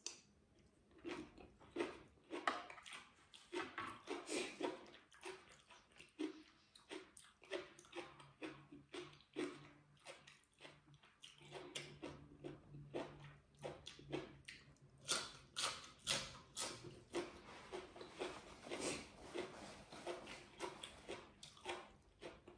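A person chewing crunchy raw green vegetables with a mouthful of stir-fried food, with many crisp crunches and mouth sounds throughout. A faint low hum runs through the middle.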